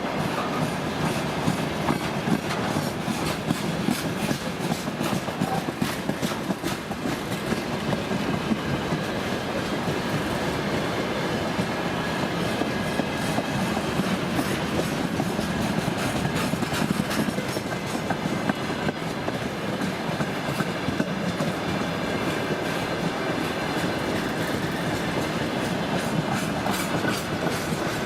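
Freight train of tank wagons rolling past, wheels clicking over the rail joints in a steady run of sharp clicks over a continuous rumble.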